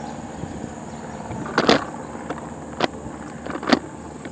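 Footsteps crunching on a gravel path: three distinct steps about a second apart, over a steady low hiss.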